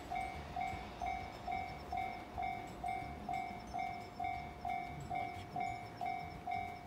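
Japanese railway level-crossing alarm bell ringing in a steady, even 'kan-kan' of about two dings a second, the signal that the crossing is closed for an approaching train.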